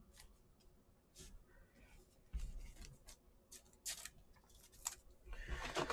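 Faint, scattered clicks and rustles of trading cards being handled and set down on a table, a dozen or so short sounds with quiet between them.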